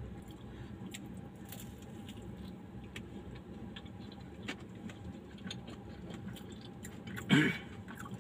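A person chewing a mouthful of fried modakam with faint, scattered soft mouth clicks over a steady low hum. A short hummed voice sound comes about seven seconds in.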